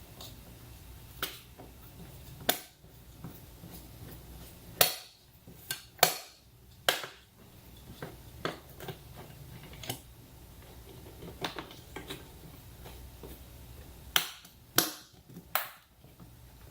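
Irregular sharp clicks and knocks of hand work on a motorcycle, with tools and parts being handled. Several louder knocks fall around five to seven seconds in and again near the end.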